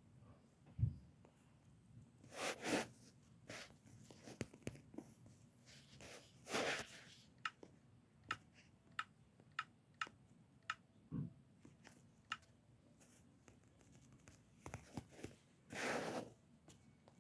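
Faint rustling and handling noises, with a low thump about a second in and a run of about ten small sharp clicks in the middle.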